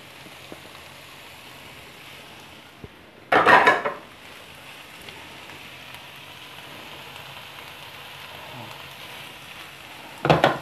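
Chopped tomatoes, capsicum and onion frying in a pan with a steady sizzle. A spatula stirs them in two short, louder bursts, about three seconds in and again near the end.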